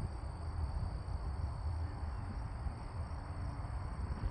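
Wind buffeting the microphone in a low, uneven rumble, with a steady high chirring of insects behind it.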